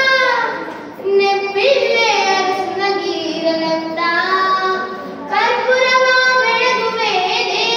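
A girl singing solo into a handheld microphone, with no accompaniment heard. She sings long, ornamented phrases with a wavering, gliding pitch, breaking briefly about a second in and again about five seconds in.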